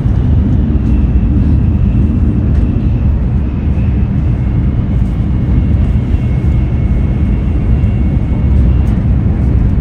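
Steady low rumble of a Shinkansen bullet train running, heard from inside the passenger carriage.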